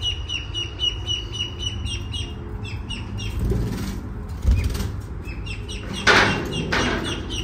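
Budgerigars chattering: a steady stream of quick, high chirps and warbles from several birds. A louder rushing burst comes about six seconds in.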